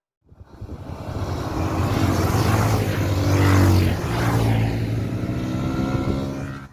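Motorcycle engine running under way, growing louder over the first second or two, loudest about three and a half seconds in, then easing a little before cutting off suddenly.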